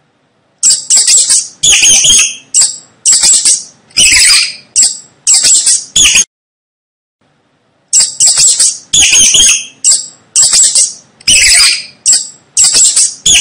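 Mouse squeaking: rapid series of shrill, high-pitched squeaks in short bursts, stopping for about a second and a half midway before starting again.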